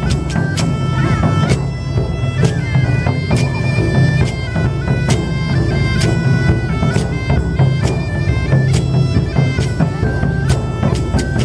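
Bagpipe tune in a medieval folk style: a melody stepping between held notes over a steady low drone, with quick sharp ornament notes between them.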